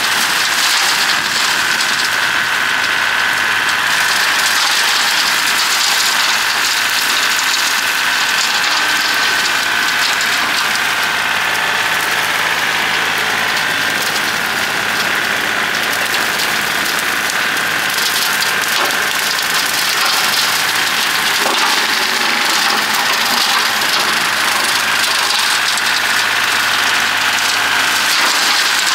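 John Deere 790 compact tractor's three-cylinder diesel engine running steadily, with a steady high-pitched whine over it.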